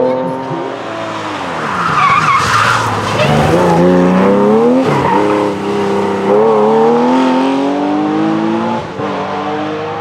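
Porsche 911 rally cars' flat-six engines at full throttle, the pitch climbing and then dropping at each gear change. About two to three seconds in there is a burst of tyre and gravel scrabbling as a car slides.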